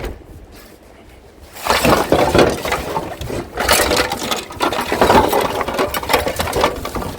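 Loose scrap metal and hard junk being handled and rummaged, a dense run of clattering and clinking that starts about a second and a half in.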